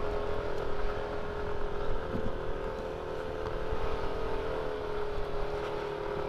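Yamaha NMAX scooter's engine running steadily as the rider climbs a village road, its drone dipping slightly a couple of seconds in and then rising again, over a low rumble.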